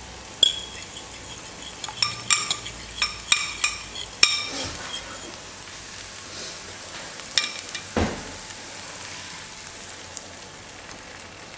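Onion-tomato masala frying in a non-stick pan with a steady low sizzle. Sharp clinks and taps of kitchen utensils come in a quick series over the first few seconds, then twice more about two-thirds of the way through.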